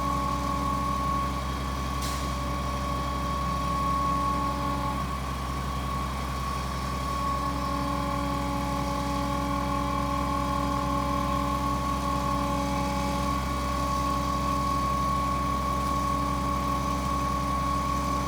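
Putzmeister 47-metre concrete pump truck running steadily, its engine rumbling under a steady high whine that holds throughout, with lower tones fading out and back in partway through.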